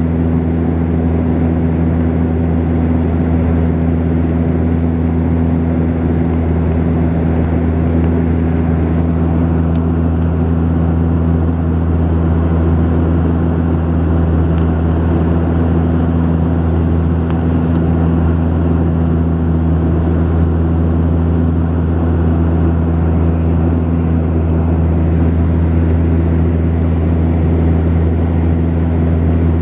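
Cabin drone of a Saab 340B's two General Electric CT7 turboprops in flight: a steady, loud hum of low propeller tones over constant airflow noise, unchanging throughout.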